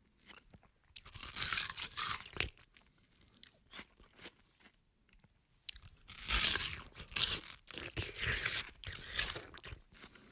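A person biting into and chewing watermelon: juicy crunches and slurping chews, in two loud spells separated by quieter chewing.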